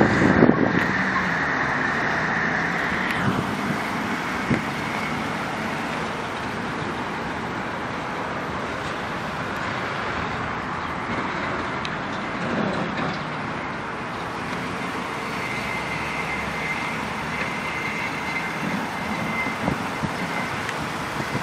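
Steady motor-vehicle noise with no distinct events, a faint high tone fading out about three seconds in.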